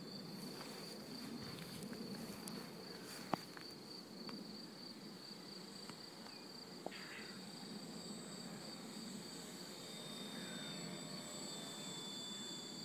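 Crickets trilling steadily: a faint, high, continuous pulsing note over a soft low background hum, with two light ticks a few seconds apart.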